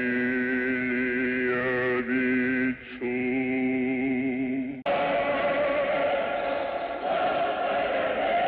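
Old film soundtrack of Russian Orthodox liturgical chant: a man's voice intones long held notes with a slight waver, breaking off twice, then about five seconds in a full choir takes over.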